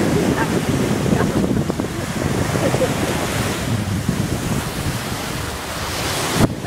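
Surf breaking and washing up onto a sandy beach, a steady rushing, with wind buffeting the phone's microphone.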